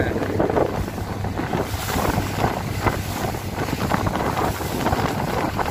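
A motorboat under way: wind buffeting the microphone over the steady low drone of the boat's engine, with water rushing past the hull.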